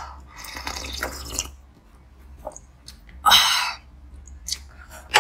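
Slurping sips of half-frozen cola slush taken from the rim of a glass bowl, with small wet mouth clicks. The second slurp, about three seconds in, is the loudest.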